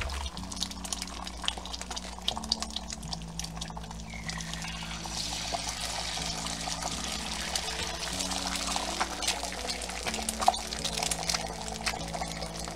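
Eggs sizzling in hot oil in a stainless steel frying pan, with a few sharp clicks and taps as fresh eggs are cracked into metal egg rings.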